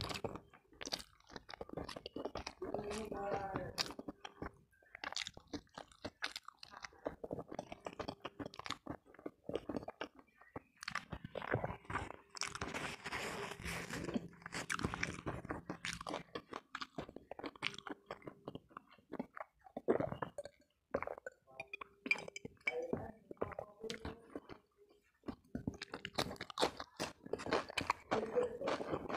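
Close-miked eating by hand: chewing, lip-smacking and crunchy bites of spicy chicken necks, tofu and rice. About halfway through there is a longer rustling stretch as a tissue wipes the mouth.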